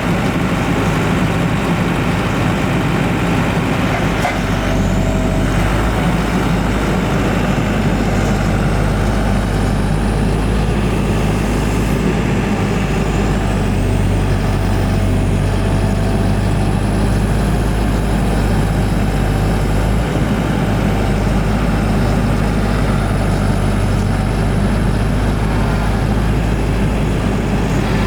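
Diesel engine of a JCB JS175W wheeled excavator running steadily, with a faint high whine that rises and falls a few times.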